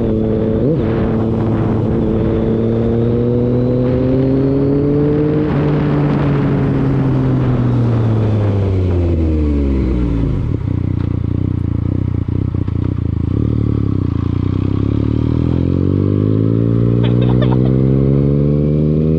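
Motorcycle engine running on the road: its pitch climbs slowly for about five seconds, drops steeply as it slows, stays low with a few sharp clicks, then climbs again near the end.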